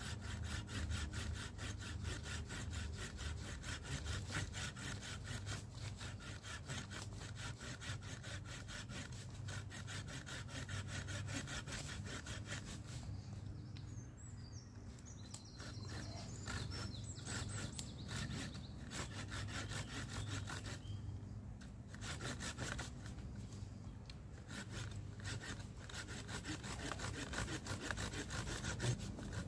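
Folding pruning saw cutting through a thin wooden stick in quick back-and-forth strokes, pausing briefly about halfway through and again a little later.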